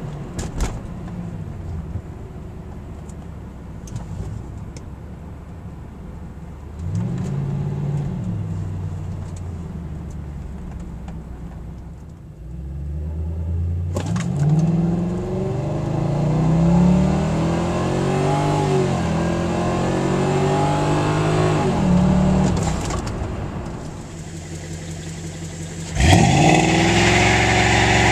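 2000 Lincoln LS 3.9-litre V8 through Flowmaster 40 mufflers with a straight-pipe resonator delete, heard from inside the cabin. It runs low and steady at first, then its pitch rises and falls several times as it revs up. About two seconds before the end it gets suddenly louder, with the rear tyres squealing in a burnout.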